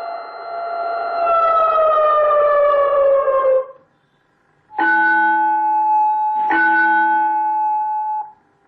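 Electronic school bell unit playing its siren tone: a held wail that falls in pitch and dies away. After a short gap come two struck bell-like tones, each ringing steadily for under two seconds before cutting off.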